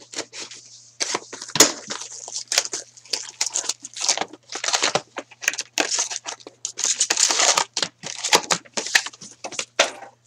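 A sealed Trilogy hockey card box torn open by hand: a rapid run of crinkling, crackling rips as its wrapping and cardboard are pulled apart and the card packs are slid out.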